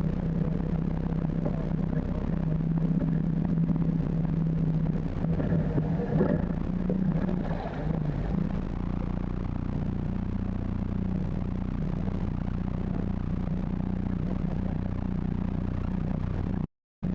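Motorboat engine running steadily at low speed, a constant drone whose pitch shifts up slightly about seven seconds in. The sound cuts out completely for a moment near the end.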